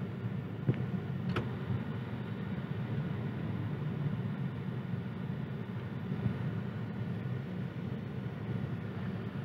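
Steady low hum of a car heard from inside its cabin, with two faint clicks about a second in.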